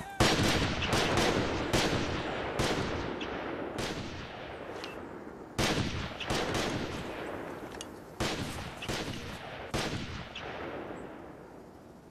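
Rifle fire from several soldiers on a firing range: sharp shots in clusters at uneven intervals, each ringing out with an echo. The firing thins out and dies away near the end.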